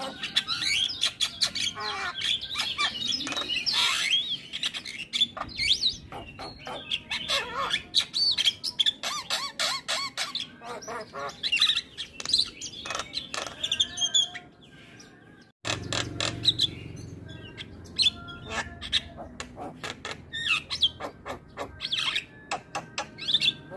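Javan myna singing: a long, busy run of quick chirps, clicks, whistles and harsh notes, breaking off for about a second two-thirds of the way through before starting again.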